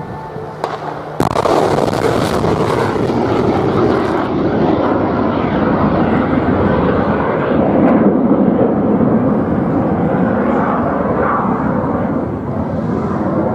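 S-125 Neva surface-to-air missile launching: a sudden blast about a second in as the solid-fuel booster fires, then the loud, steady noise of the rocket motor as the missile climbs away, easing slightly near the end.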